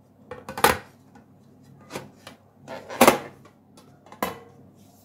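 Knocks and clatters of a serving plate against a fluted metal cake pan as the two are flipped over and handled, with the loudest knock about three seconds in and lighter ones before and after.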